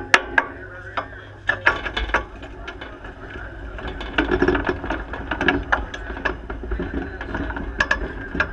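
Sprint car rolling slowly through the pits, its chassis and the camera mount rattling with many irregular clicks and knocks. Under them is a low rumble that grows louder about a second and a half in.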